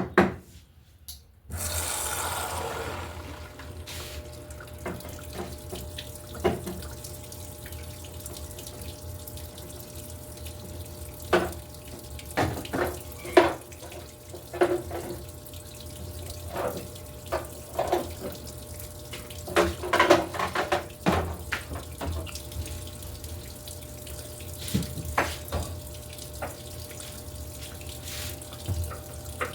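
Electrolux LTE08 washing machine taking in water: after a click, the inlet flow starts suddenly about a second and a half in and runs steadily into the tub, with intermittent splashing and sloshing.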